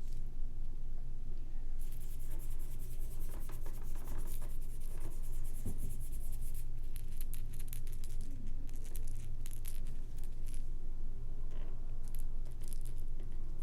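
Scattered crackling clicks and rustles over a steady low hum.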